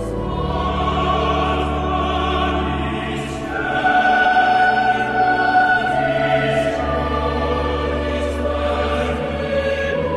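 Church music: a choir singing slow, long-held chords over a sustained bass, the chord changing about every three seconds.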